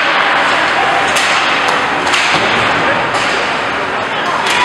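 Ice hockey play: several sharp clacks and thuds of sticks, puck and bodies against the boards, over a steady wash of rink noise and spectator chatter.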